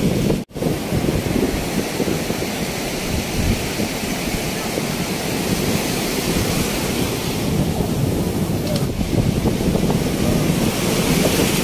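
Sea surf breaking and washing up the sand, with wind buffeting the microphone as a steady low rumble. The sound cuts out for an instant about half a second in.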